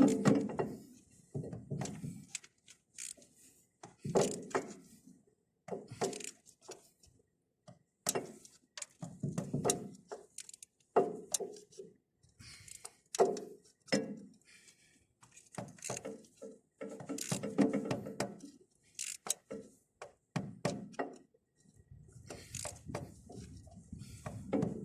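Intermittent knocks and metallic clinks of hand tools on the bulldozer's oil cooler assembly as its bolts are tightened, with irregular gaps between strokes.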